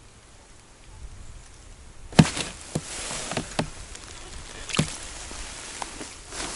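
Rustling of winter clothing and snow crunching as an angler crouches at an ice hole and hand-lines a small fish up. It starts about two seconds in with a sharp click, the loudest moment, and a few more clicks follow through the rustling.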